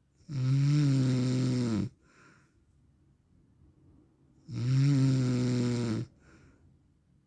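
A man snoring in his sleep: two loud snores about four seconds apart, each lasting about a second and a half on a steady low pitch, with a faint breath out after each.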